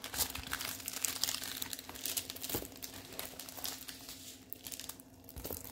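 Plastic packaging crinkling and rustling as a diamond-painting canvas in its clear plastic sleeve is handled and unrolled, with many small crackles that thin out near the end.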